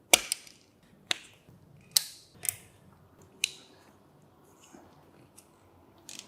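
Sharp, irregular clicks and knocks of small parts being handled and snapped into place while lights are fitted to an electric bike. There are about six in the first three and a half seconds, then it goes quiet.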